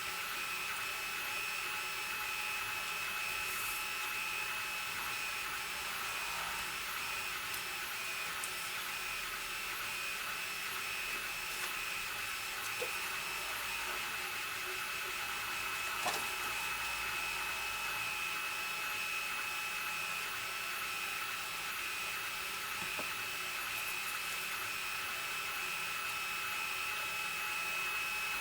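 A steady high whine over even hiss, unchanging throughout, with a few faint clicks of handling, the loudest about two-thirds of the way in.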